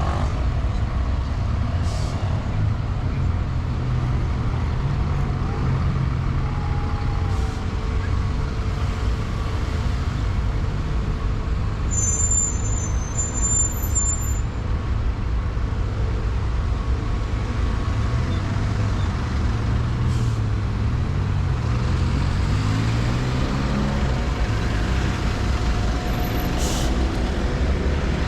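City road traffic heard from the pavement: a steady rumble of passing trucks and buses. About two-thirds of the way in, a heavy engine climbs and falls in pitch as it pulls away, and near the middle there is a brief high squeal.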